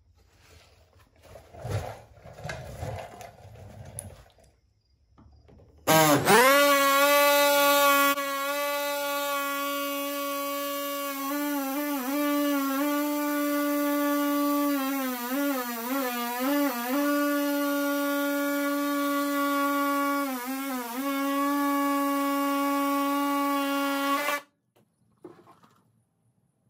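Pneumatic body saw running with a steady high whine. It spins up quickly about six seconds in, its pitch dips and wavers a few times as the blade bites into the grille, and it cuts off abruptly near the end.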